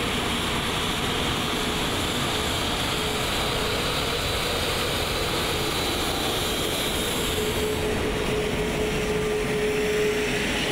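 Airbus A380's Rolls-Royce Trent 900 jet engines running at taxi thrust as the airliner rolls past close by: a steady rush of engine noise with a steady whining tone that grows stronger near the end.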